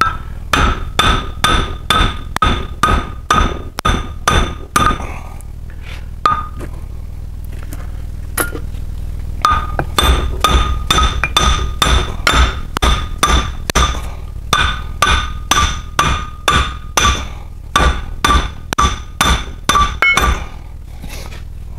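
Repeated hammer blows on steel, knocking an old brake disc off a Land Rover Defender 90 rear hub, each strike ringing metallically. They come about two to three a second in two long runs, with a pause of a few seconds broken by a couple of single blows.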